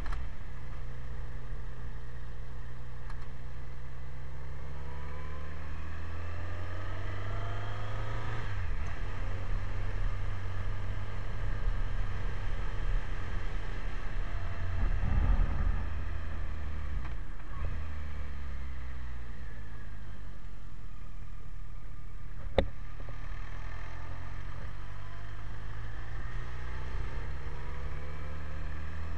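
BMW K1100LT's inline four-cylinder engine running under way: its pitch climbs as the bike accelerates, drops off about a third of the way in, and climbs again in the last third. A low rumble swells midway, and there is one sharp click about two-thirds through.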